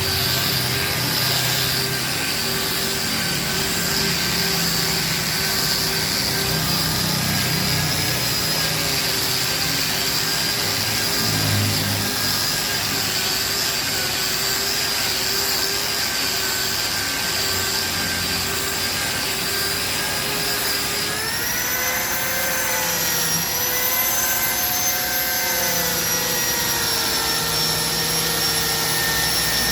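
Hand-held angle grinder fitted with a sanding disc, running steadily with a high whine while it sands a solid wood chair seat. The whine rises in pitch about two-thirds of the way through and holds there.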